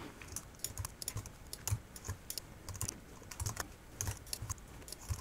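Computer keyboard typing: quick, irregular keystrokes as track names are typed in.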